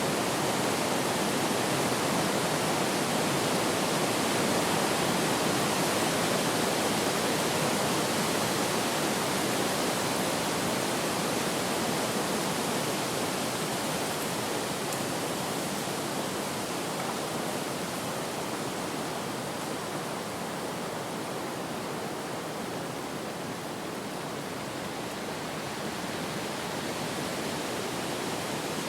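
Steady wind, an even rushing noise that swells a little a few seconds in and then slowly eases off.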